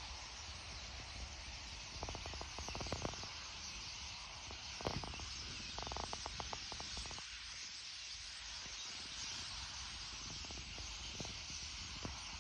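A large flock of common starlings overhead, their massed chatter a steady high hiss, broken by short bursts of rapid clicks about two seconds in, around five seconds and again around six to seven seconds.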